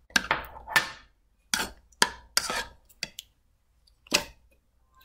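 Metal spoon clinking and scraping against a bowl while stirring rice into soup: a quick run of short clinks and scrapes over the first three seconds, then one more clink about four seconds in.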